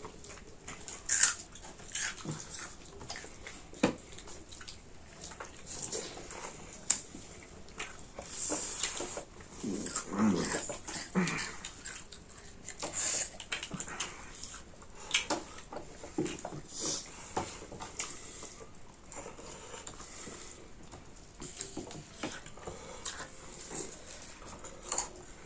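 Close-up mukbang eating sounds: chewing, wet mouth smacks and scattered clicks, with a short low voiced sound about ten seconds in.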